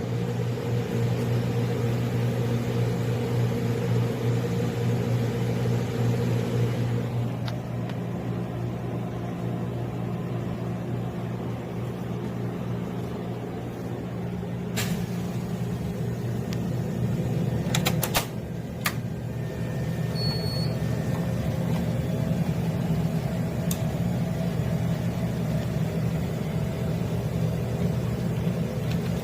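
Steady electric hum of a commercial upright freezer's refrigeration unit running. Part of the hum drops away about a quarter of the way in, and a few sharp clicks come around the middle.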